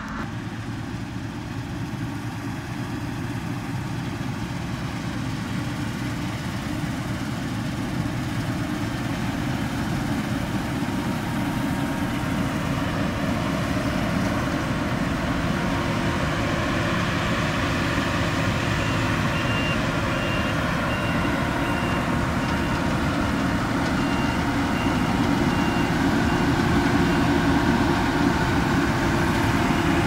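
Claas Lexion 530 combine harvester with a C540 header cutting wheat, its engine and threshing machinery running steadily and growing louder as it draws close. In the second half a high electronic beep repeats at a regular pace for several seconds.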